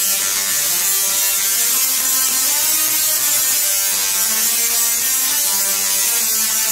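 Tesla coil discharging, sparks arcing through the air with a loud rasping buzz and hiss. The buzz steps between pitches every half second or so, like a run of notes.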